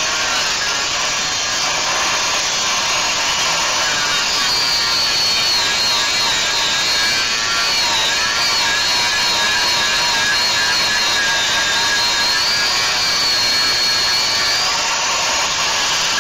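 Power tool running under load on the steel frame of a 1946 Ford truck, working off a factory frame rivet: a steady harsh noise with a high whine that wavers in pitch.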